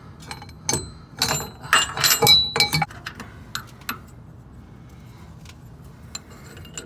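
Metal tool parts clinking and rattling, with short ringing notes, as an inner tie rod removal tool is fitted and locked onto the inner tie rod. The sound is busiest in the first three seconds, then thins to a few light clicks.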